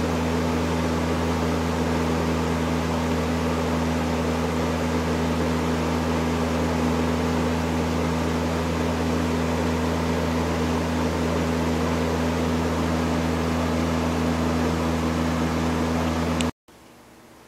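1987 Robeson 20-inch reversible box fan (model 2385) running steadily: a rush of air over a constant motor hum. The sound cuts off abruptly near the end, leaving only a faint background.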